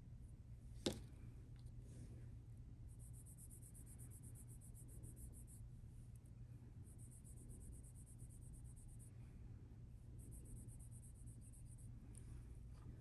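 Near silence: a steady low hum with one sharp click about a second in, and a faint high-pitched pulsing that comes and goes.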